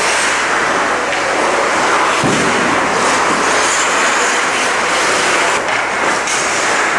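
Steady, loud rushing noise of an indoor ice rink during hockey drills, with skate blades carving the ice and a few sharp stick-or-puck clacks near the end.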